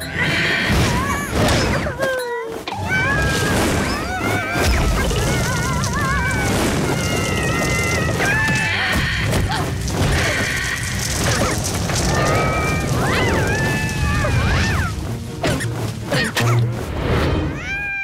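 Cartoon soundtrack: music under high, gliding cartoon voice squeals and chatter, with occasional thuds and crashes.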